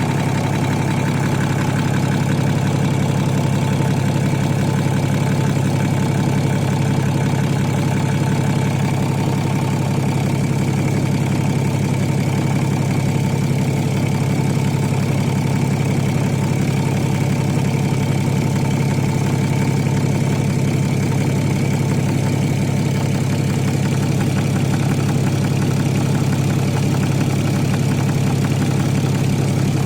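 BMW N57D30 3.0-litre straight-six diesel idling steadily, with a repetitive knock from the rear of the engine near the automatic transmission.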